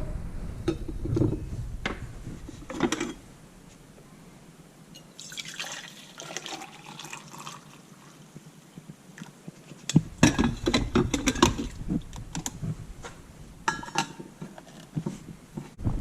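Liquid being poured and dripping, followed about ten seconds in by a run of irregular knocks and clatters.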